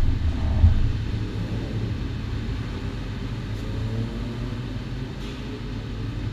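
Kawasaki Ninja 400 parallel-twin engine idling in neutral, a steady low rumble heard through a camera mounted on the bike, with a couple of louder low surges in the first second.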